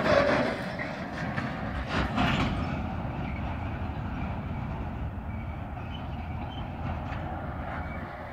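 Freight train wagons rolling away over the rails, a couple of sharp wheel clacks in the first two seconds, then a steady rumble that fades as the train recedes.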